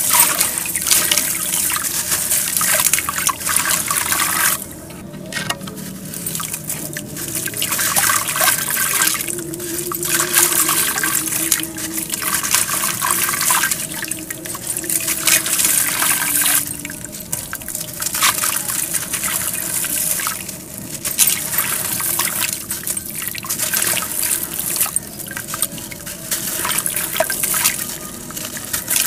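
Dry, gritty brown dirt crumbled by hand and dipped into a basin of foaming water, grains and lumps pouring into the water in loud bouts with short pauses between them.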